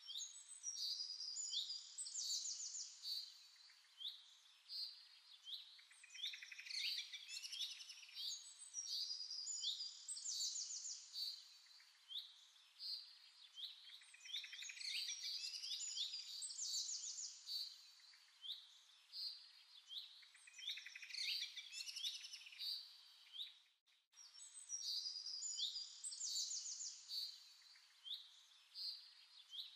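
A chorus of many small birds chirping and singing at once, with short calls and quick repeated trills overlapping; the sound cuts out for a moment about three-quarters of the way through.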